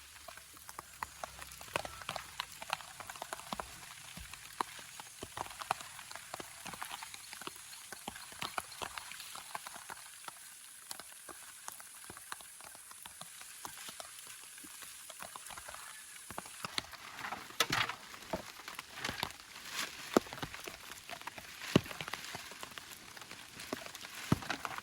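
Rain falling, with irregular drops ticking sharply on a surface over a steady hiss. The drops get louder after about two-thirds of the way in.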